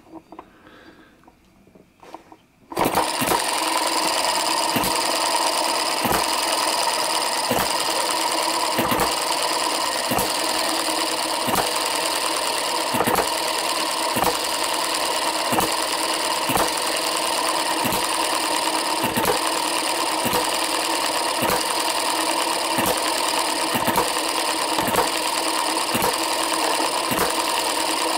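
A Microcosm M90 hit-and-miss model engine catches about three seconds in and runs with a steady mechanical whirr, a sharp firing stroke breaking in about once a second at slightly uneven spacing. The firing comes at about 45 to 48 hits a minute, set by its newly fitted softer governor springs.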